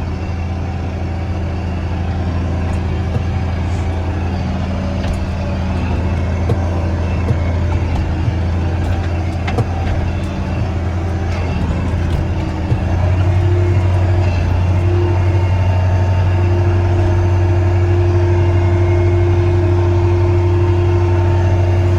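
Steiger Panther 1000 articulated four-wheel-drive tractor's diesel engine running steadily while driving, a deep even hum. About thirteen seconds in, the engine note shifts and gets a little louder, with a higher steady whine joining it.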